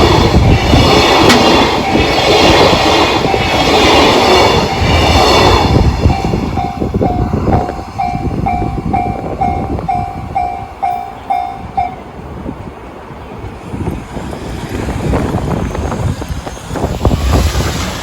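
A freight train's wagons roll loudly over the rails for the first several seconds, with a clickety-clack. A level crossing's electronic warning bell, the JR standard alarm, rings about twice a second and becomes plain as the train noise fades. The bell stops about two-thirds of the way through as the crossing clears.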